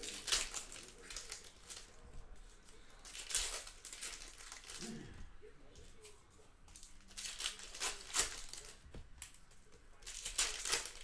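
Panini Hoops hobby pack wrappers crinkling and tearing as trading-card packs are ripped open, in several separate bursts a few seconds apart.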